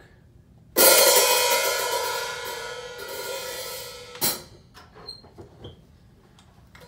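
A cymbal on a home drum kit struck once about a second in, ringing with a shimmering metallic wash that slowly dies away over about three seconds. A single sharp hit follows near the middle, then a few light taps and clunks.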